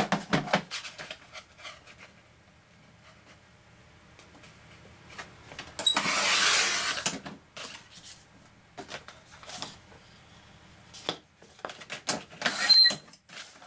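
Sliding-blade paper trimmer cutting heavy cardstock: a loud, rasping stroke of about a second, about six seconds in, with clicks and knocks as the blade head and sheet are handled and a short squeak near the end. The speaker calls it an unpleasant sound.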